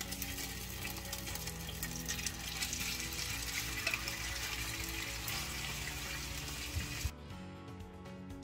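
Shrimp and garlic sizzling in a hot frying pan, a steady hiss that cuts off abruptly about seven seconds in. Background music plays underneath.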